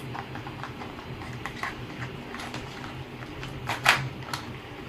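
Small plastic toy items being handled and set down, light clicks and taps, with a louder double clack about four seconds in.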